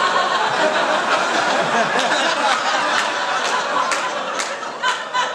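Live audience laughing together, easing slightly toward the end, with a few sharp claps scattered through it.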